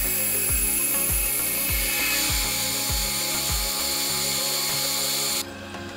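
Horizontal metal-cutting band saw running and cutting through rectangular steel tubing, a steady high hiss that cuts off suddenly near the end. Background music with a low thumping beat plays under it.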